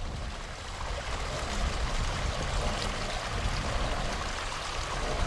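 Steady rush of water pouring from a pump discharge hose into the canal while a cofferdam is kept pumped dry, with a low, unsteady rumble underneath.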